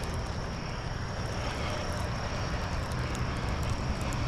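A steady low engine drone, with a faint, high, steady whine above it.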